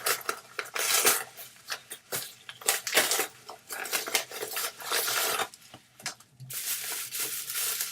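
Plastic packaging rustling and crinkling as a new laptop power cord and adapter are unwrapped, with irregular clicks and knocks from handling.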